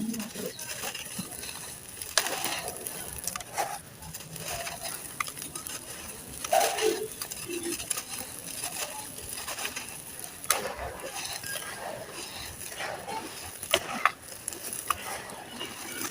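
Grainy sand-cement slabs being crumbled in a tub: irregular gritty crunches and crackles, with sharper snaps about two, six and a half, ten and a half and fourteen seconds in.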